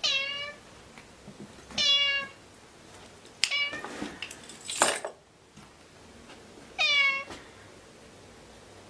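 Orange tabby house cat meowing three times, short calls about half a second each: one at the start, one about two seconds in, and one about seven seconds in. Between the second and third meows come a few sharp clicks and a brief burst of noise.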